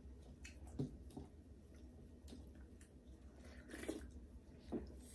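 Quiet chewing and mouth sounds of a person eating, with scattered small clicks and a few brief soft smacks, over a steady low hum.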